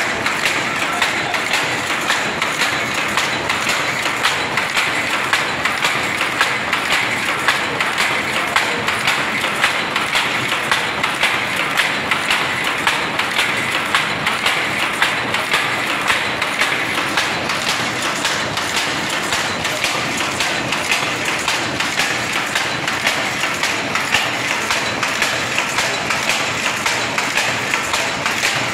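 Power loom fitted with an electronic dobby, running at speed: a steady, rhythmic mechanical clatter of evenly repeating knocks, a few strokes a second, as the shuttle is picked and the reed beats up each weft.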